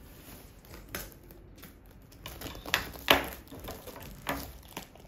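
Plastic shrink wrap on a cardboard box being cut with scissors and pulled off, crinkling and crackling in short irregular bursts, loudest about three seconds in.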